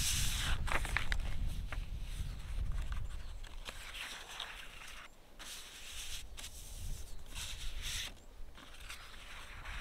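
Sheets of paper rustling in irregular bursts as they are shuffled and spread out by hand on a stone surface, with a low rumble underneath during the first few seconds.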